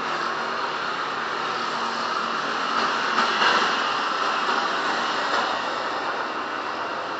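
Street traffic: motor scooters and a car driving past, a steady noise of engines and tyres that swells briefly about halfway through as the scooters go by.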